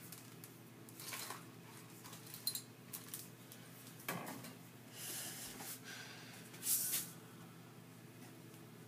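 Faint handling noises: scattered rustles and light clatters of small things being moved about, loudest just before 7 seconds, over a steady low hum.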